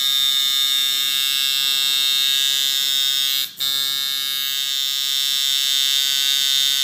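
Coil tattoo machine buzzing steadily, its armature bar striking the front coil through two layers of 3M tape stuck under it to damp the noise. The buzz cuts out for a moment about halfway through, then runs on.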